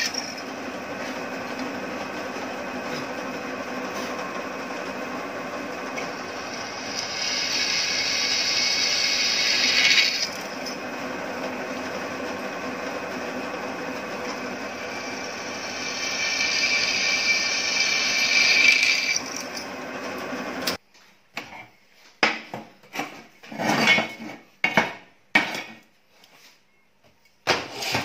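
Drill press running, with a twist bit cutting holes through steel angle iron: twice a louder, higher-pitched grinding builds as the bit cuts through and then stops abruptly. Near the end it gives way to a few separate clanks of the steel angle lengths being handled and set down on a metal surface.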